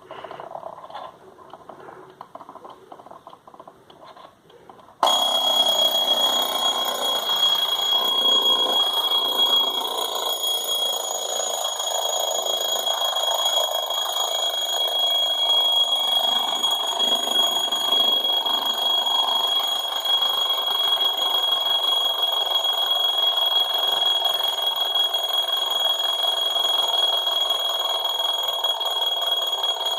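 Herweg model 2220 alarm clock going off: quiet for about five seconds, then the alarm starts suddenly and rings loud and steady with one bright, high tone.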